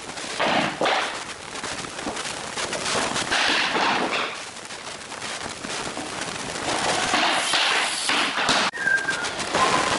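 Laminate floor planks being fitted and knocked into place with a hammer striking a brick that serves as a tapping block: a run of sharp knocks and clatter of wood on wood.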